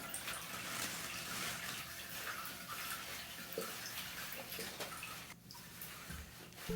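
Water running and splashing in a bathtub while a dog is being bathed, a steady hiss that dips briefly near the end.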